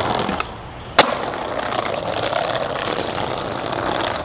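Skateboard wheels rolling steadily over brick paving, with one sharp clack about a second in.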